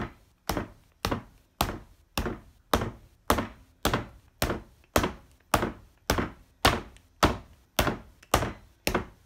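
A wooden rolling pin beating bread dough on a cutting board, dull thuds about twice a second in a steady rhythm. The dough is pain brié, pounded to beat out its air pockets for a dense crumb.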